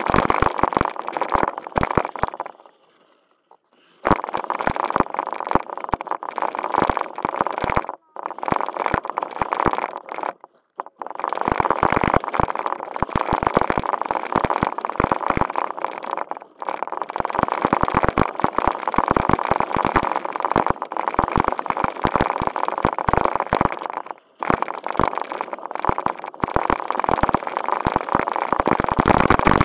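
JJRC Q76 RC stunt car driving over rough concrete and gravel, heard from a camera mounted on it: its small electric motors and gears run under a dense clatter of knocks and rattles from the plastic body, with plastic crackle from the bag over the camera. The car stops briefly several times.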